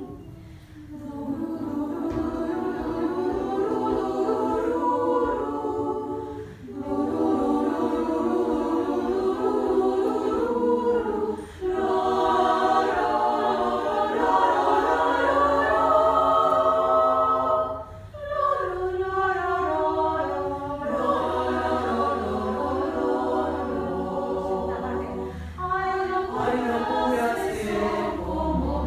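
Women's choir singing a cappella in several parts, in sustained phrases broken by four short pauses.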